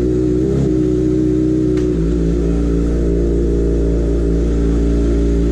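Kawasaki ZX-25R's 250 cc inline-four running at low revs through a loud Austin Racing aftermarket exhaust, a steady note that changes slightly about two seconds in as the bike moves off.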